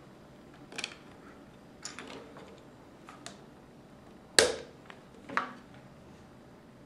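Plastic LEGO bricks clicking as they are handled and pressed onto a model car on a wooden table: about five short sharp clicks, the loudest a little over four seconds in.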